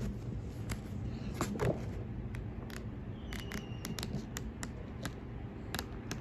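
Quiet handling noise: scattered light clicks, scratches and paper rustles as a small paperback guidebook and a bundle of dried sage are handled.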